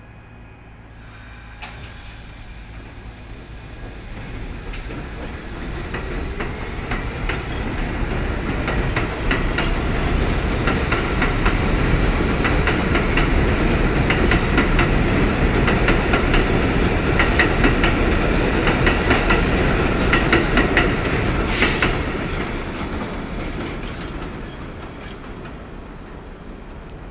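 A New York subway train of R62A cars pulls out of an elevated station and runs past, its wheels clacking over the rail joints. The sound builds over several seconds, stays loud through the middle, then fades as the train draws away. A brief sharp noise is heard near the end.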